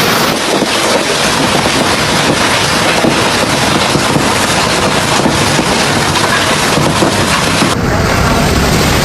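Heavy hail and rain pounding down: a loud, continuous rush of noise with many small impacts. The sound changes character abruptly near the start and again near the end.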